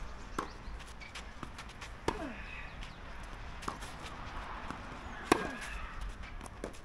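Tennis rally: sharp racket strikes on the ball about every second and a half, with fainter ball bounces between them. The loudest hit comes a little past five seconds in.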